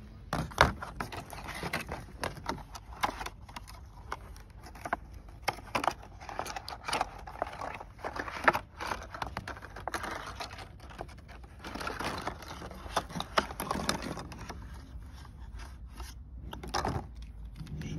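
Handling noise from a new Bosch AeroEco flat wiper blade and its plastic packaging: irregular plastic clicks and snaps, with scraping and crinkling. The sharpest clicks come just after the start and about halfway through.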